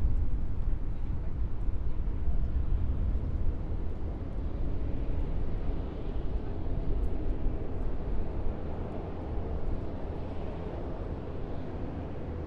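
Heavy military vehicles passing, a deep engine rumble that is loudest at the start and fades gradually as they move on.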